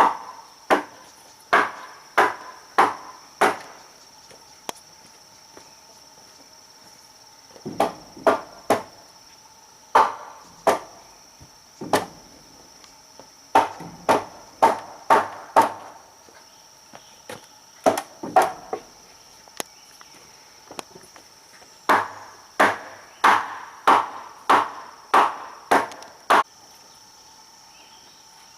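Wood being struck repeatedly with a hand tool: sharp blows about twice a second, in bursts of two to nine with pauses between. A steady high insect drone runs underneath.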